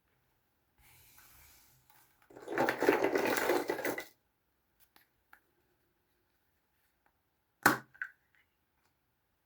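Small plastic toys and their packaging being handled: a faint rustle, then a loud crackling rattle for about two seconds, a few light clicks, and a sharp knock near the end followed by a smaller one.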